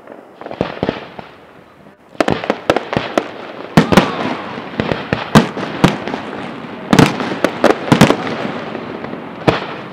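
Aerial firework shells bursting, many sharp bangs over a continuous din. A few bangs come first, then about two seconds in they turn into a dense, rapid barrage.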